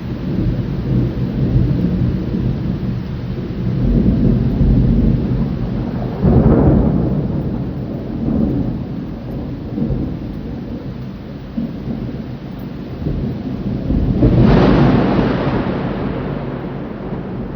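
Thunder rolling in long low rumbles, with two sharper, louder claps: one about six and a half seconds in, the other about fourteen seconds in.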